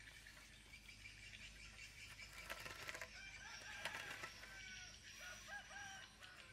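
A spade chopping and scraping into grassy soil a few times, about halfway through. Faint insect trilling runs steadily underneath, and a bird calls several times in the second half.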